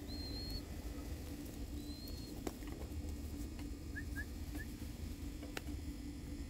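A person whistling two short, thin, high notes, the feeding call that young spotted doves are being taught to answer. About four seconds in come three quick faint chirps, over a low steady hum.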